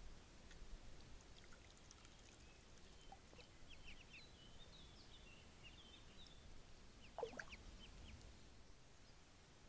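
Faint, high peeping of ducklings, a scatter of short calls bunched about four to five seconds in, with another short call about seven seconds in; otherwise near silence.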